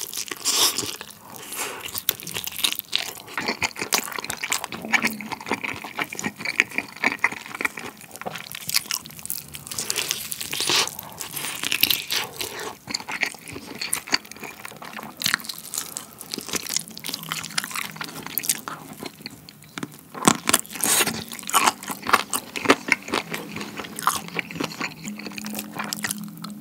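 Close-miked biting and chewing of a basil-pesto-coated fried chicken drumstick: dense, irregular crisp crunches of the fried coating, mixed with chewing.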